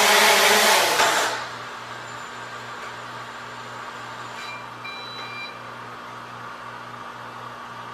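MJX Bugs 3 quadcopter's brushless motors and propellers whirring loudly with the drone on the floor, then spinning down and cutting off about a second in. A low steady hum remains, with a few faint short high beeps near the middle.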